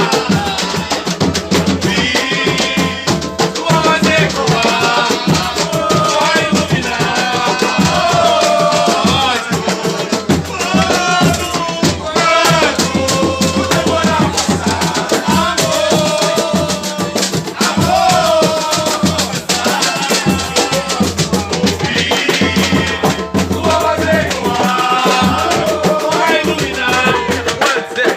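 Loud music with drums and shaker-like percussion keeping a busy, steady rhythm under a melody.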